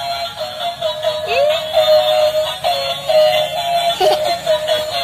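Battery-powered toy dump truck playing its built-in electronic song, a high stepwise melody with a synthetic singing voice and no bass, broken by a couple of short rising swoops. A short knock about four seconds in.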